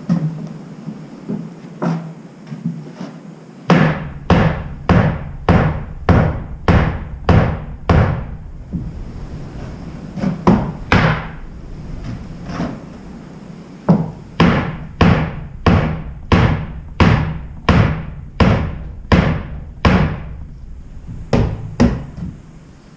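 Hammer blows on timber-frame joinery: two long runs of heavy strikes, a little over two a second, with a few lighter taps at the start.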